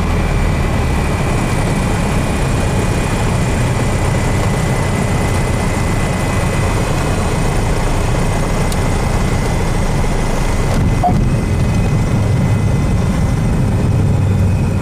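Cabin noise of a Piper Archer's four-cylinder Lycoming engine and propeller, running steadily at landing power as the plane flares and touches down on the runway.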